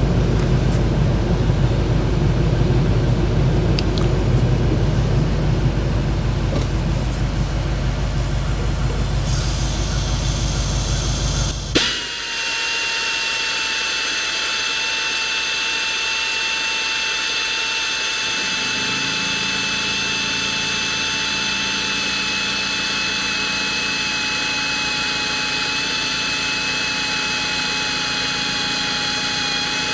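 Air compressor motor running with a steady low hum that stops abruptly about 12 seconds in. A half-inch pneumatic drill then runs with a steady whine and air hiss as it bores through an aluminium block, and about 19 seconds in the compressor pump starts again underneath as the tank pressure falls below its 175 PSI cut-in.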